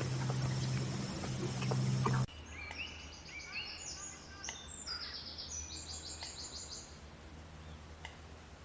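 A steady low hum with scattered clicks cuts off abruptly about two seconds in, and is followed by birds chirping in many quick, high, repeated notes that fade out near the end.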